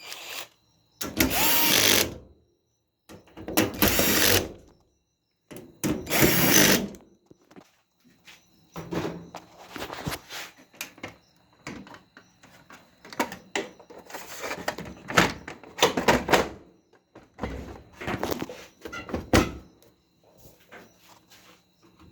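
Power drill driving screws into a dryer's sheet-metal cabinet: three short runs of about a second each in the first seven seconds, followed by scattered clanks and rattles of parts being handled.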